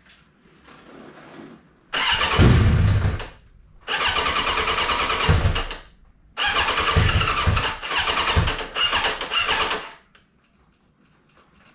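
Suzuki motorcycle's electric starter cranking the engine in three attempts, each one to three and a half seconds long, without the engine catching: the bike won't start, the battery seemingly low.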